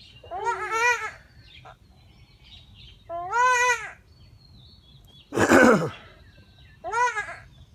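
Goat kid bleating four times in distress while held down and castrated; the third bleat is the loudest and harshest, falling in pitch. Faint bird chirps in the background.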